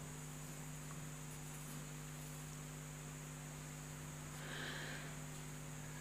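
Steady electrical hum with a faint hiss, with no speech. A faint, brief sound comes about four and a half seconds in.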